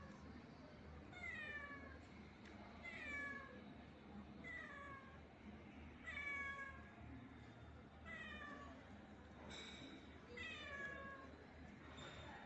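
A domestic cat meowing over and over, about seven or eight meows, each one falling in pitch, spaced roughly one to two seconds apart.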